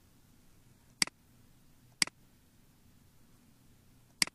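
Computer mouse clicks: single clicks about one and two seconds in, then a quick double-click near the end, over faint room hum.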